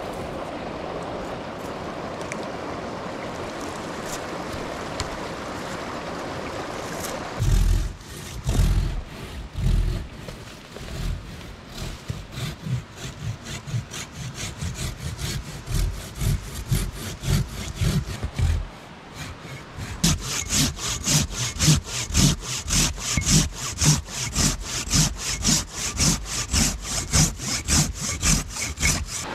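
Steady rush of a mountain stream, then a hand pruning saw cutting through a green branch in rapid back-and-forth strokes. The strokes start about seven seconds in and grow louder and more regular, about two a second, in the last third.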